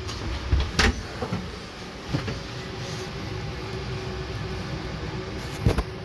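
Steady drone of an airliner cabin heard inside the lavatory, with a few sharp clicks and knocks: about a second in, just after two seconds and near the end.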